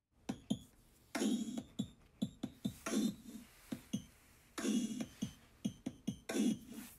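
Background music: an electronic drum beat that starts suddenly, with sharp clicks between heavier hits that come about every second and a half to two seconds.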